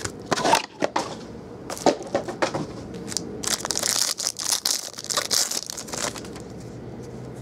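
Foil wrapper of a football card pack crinkling and tearing as it is ripped open by hand, the crackling strongest from about halfway through. Before that, a few sharp clicks and taps as the box and pack are handled.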